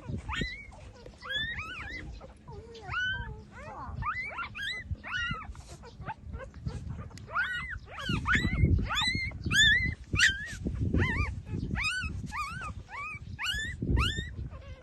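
Six-day-old puppies squeaking and whimpering while nursing: many short, high calls that rise and fall, a few each second, over low muffled noise that is strongest about eight to eleven seconds in.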